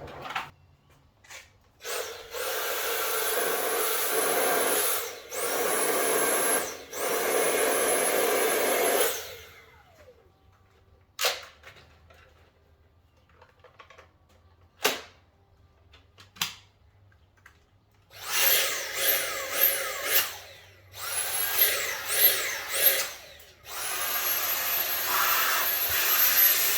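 Compressed-air blow gun blasting dust out of the vacuum's parts: three long blasts, a quiet spell with a few clicks, then a run of short trigger pulses and a final long blast. Each long blast carries a thin high whistle that rises as it starts and then holds.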